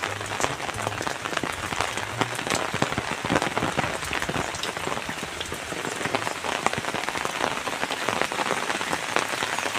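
Steady rain falling, with many separate drop hits sounding close by throughout.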